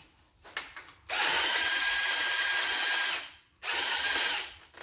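Power tool spinning a bolt out of the front of a 5.9 Magnum V8 engine: one steady run of about two seconds, a short pause, then a second shorter run.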